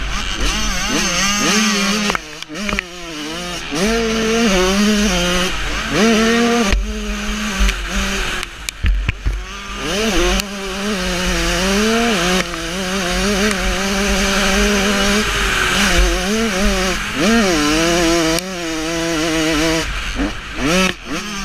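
Motocross dirt bike engine revving up and down again and again as the rider accelerates, shifts and rolls off the throttle, dropping away briefly around two and nine seconds in. Wind rumbles on the on-board microphone underneath.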